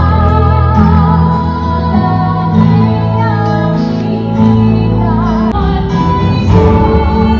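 Music with a female singing voice over sustained low chords.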